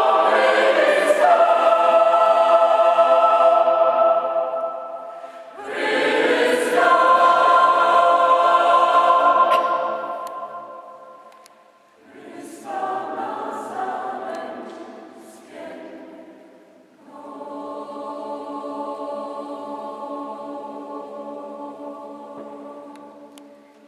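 Mixed choir of women's and men's voices singing a slow sacred piece in long held chords. The phrases swell and fade away one after another, and a final soft chord is held and dies out near the end.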